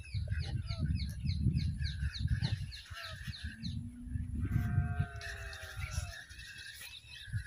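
Bird calling outdoors: a quick run of short, falling chirps, about four a second, for the first few seconds, then a drawn-out honking call with several tones a little after the middle. A gusty low rumble of wind on the microphone runs underneath.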